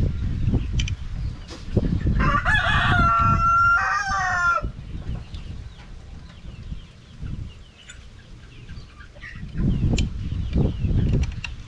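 A rooster crowing once, about two seconds in, a call of roughly two and a half seconds with a held note that drops at the end. Low rumbling noise comes before it and again near the end.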